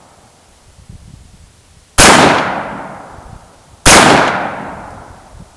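Smith & Wesson M&P15 AR-15 rifle fired twice, about two seconds apart, each shot a sharp crack trailing off in a long echo.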